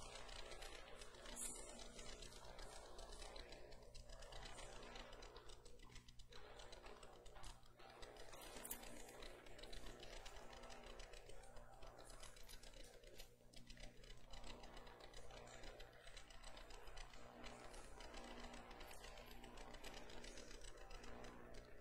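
Near silence: room tone with a low steady hum and faint scattered small clicks.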